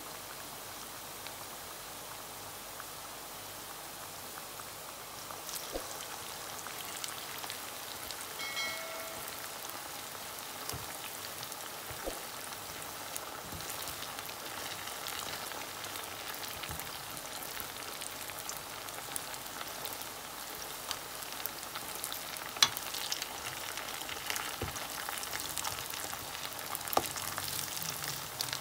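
Bulgur, potato and minced-meat croquettes deep-frying in hot oil: a steady sizzle with fine crackles and pops. A few sharp clicks of a utensil against the pan stand out as the pieces are turned, the loudest about two-thirds of the way through.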